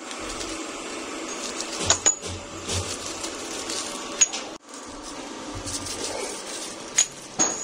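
Metal parts clinking and knocking against metal a handful of times, each strike ringing briefly, over a steady workshop hum.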